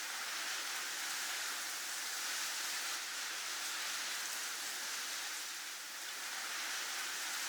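Snowstorm wind ambience: a steady, high hiss of wind that swells and eases slightly every few seconds.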